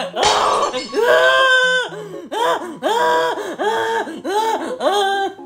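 A voice making a run of drawn-out wordless sounds: a long held call, then about six short rising-and-falling calls at roughly two a second, over faint background music.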